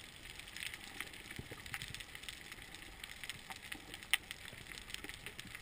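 Underwater reef ambience: a steady crackle of many faint clicks from snapping shrimp, with one sharper click about four seconds in.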